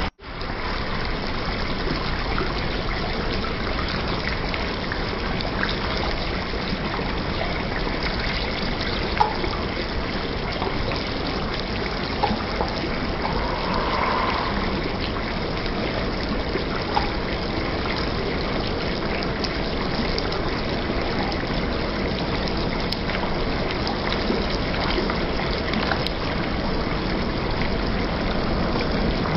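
Thick beef curry bubbling and sizzling steadily in a pan on the stove, with a few sharp pops.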